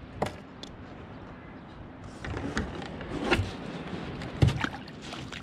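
Scattered knocks and clicks of hands and gear handled against a plastic fishing kayak, the loudest a little past four seconds in.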